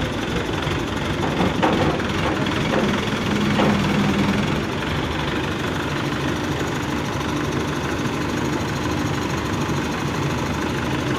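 Diesel engine of an ACE hydra pick-and-carry crane running steadily.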